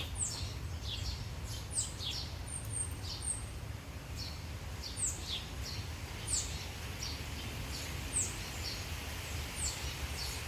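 Small birds chirping: short high calls that fall in pitch, repeating about once a second, over a steady low background rumble.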